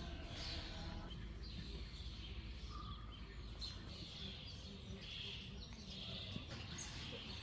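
Small songbirds chirping and singing repeatedly over a steady low outdoor rumble.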